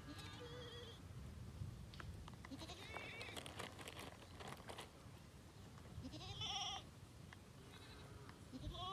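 A goat bleating several times, faint, with short wavering calls; the loudest comes about six seconds in and another just at the end.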